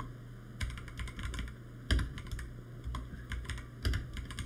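Typing on a computer keyboard: short runs of keystrokes with brief pauses between words, one key struck harder about two seconds in.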